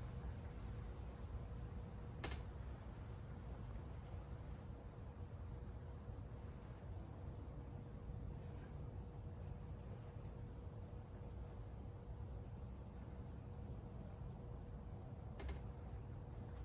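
Faint, steady high-pitched trilling of insects such as crickets, with a low steady hum underneath and a couple of light clicks from handling parts.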